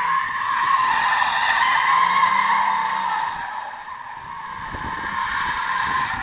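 Mercedes W211 E270 CDI's tyres squealing in a continuous drift. The squeal fades about four seconds in, then builds again as the car swings round.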